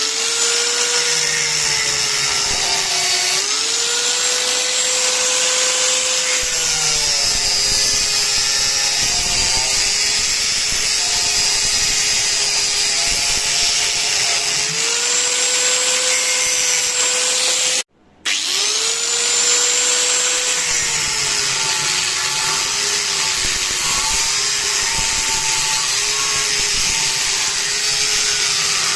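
Electric power tool running with a steady high whine whose pitch sags and recovers again and again as the tool bites into the work. It cuts out briefly about eighteen seconds in, then spins back up with a rising whine and carries on.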